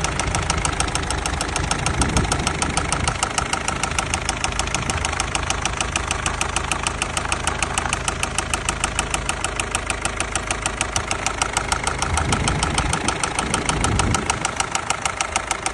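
Volvo V50's 1.6-litre diesel engine idling with a rapid, even clatter of sharp ticks, the unusual noise the owner is trying to track down.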